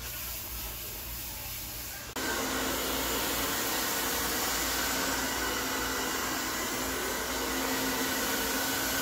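Handheld hair dryer blowing steadily on hair, a constant rushing air noise with a faint motor whine. It jumps suddenly louder about two seconds in.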